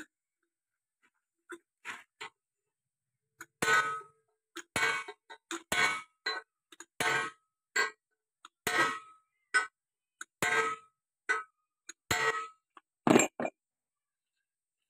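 Metal-on-metal hammer blows driving a new bush into a John Deere 5055E tractor's front axle spindle housing: a string of sharp ringing clangs, a few light taps at first, then strikes about every half second from roughly three and a half seconds in.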